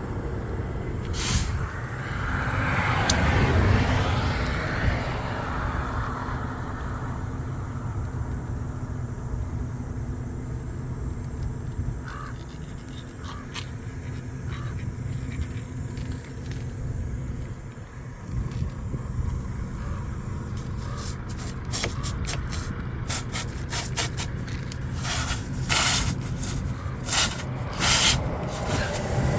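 Steady low rumble of an idling vehicle engine, with scraping and rubbing that swells a few seconds in, and a run of sharp clicks and knocks over the last several seconds.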